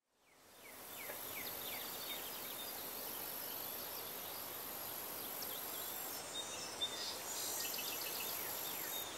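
Quiet outdoor ambience fading in: birds chirping with short falling calls over a steady high buzz, with one soft click partway through.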